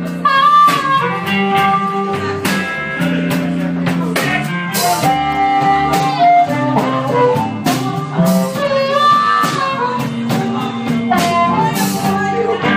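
Live blues band playing: electric guitar, bass guitar and drum kit, with a bending lead melody line above them and steady drum and cymbal hits.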